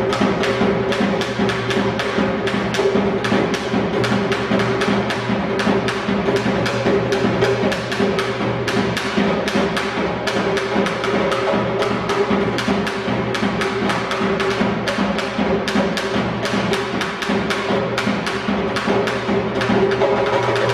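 Drums beaten with sticks in a fast, steady, unbroken beat of about four to five strokes a second, with a steady ringing tone underneath. The drumming stops abruptly near the end.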